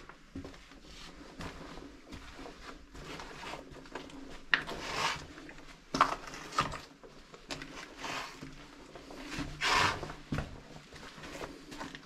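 Irregular footsteps scraping and crunching on a gritty, debris-strewn floor, with rustling and rubbing of clothing, in a narrow brick tunnel.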